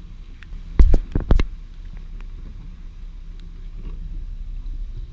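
A few loud knocks about a second in, the GoPro being handled and bumped as it is moved from outside the pickup truck into the cab, over a steady low rumble of the truck.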